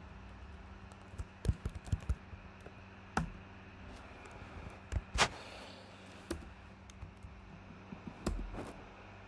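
Computer keyboard typing: irregular key clicks and taps, a few louder keystrokes, over a faint steady low hum.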